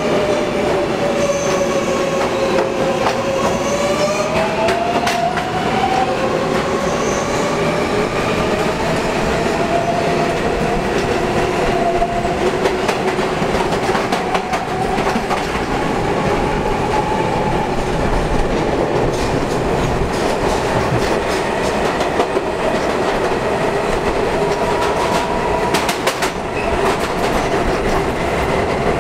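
New York City subway train running through a tunnel, heard from inside the car at the end door: a steady rumble of wheels on rail with clicks over the rail joints and a whine that wavers up and down in pitch. There is a brief burst of clatter near the end.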